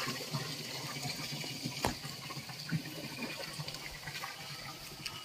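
Steady running water, like water pouring or flowing through a pipe, with one sharp click about two seconds in.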